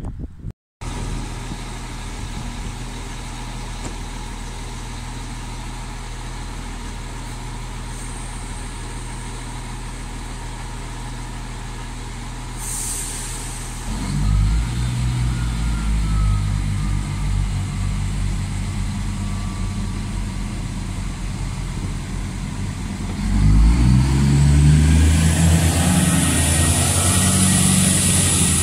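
Diesel railcar engines running at a station platform, louder from about halfway. About five seconds before the end they rev up, rising in pitch with a hiss, as the train pulls away.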